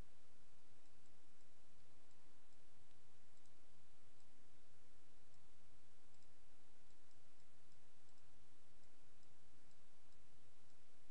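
Faint computer mouse clicks, scattered and irregular, over a steady background hiss and low electrical hum.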